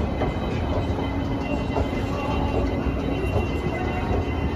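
Driverless airport shuttle train running: a steady low rumble with a faint whine.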